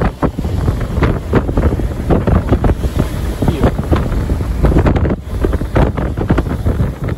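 Typhoon-force wind buffeting the microphone in irregular gusts, with a heavy low rumble and rushing noise.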